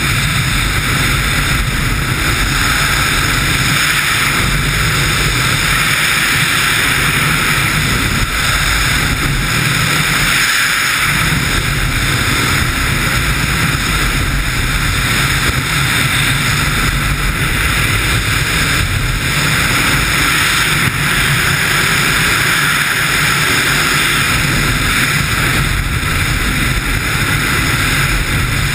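Loud, steady rush of wind over a helmet camera's microphone during wingsuit flight, the airflow at flying speed buffeting the mic.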